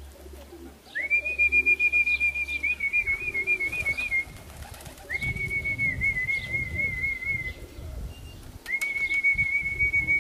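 A person whistling to call homing pigeons into the loft: three long, high whistles, each held steady, the first two breaking into a wavering trill.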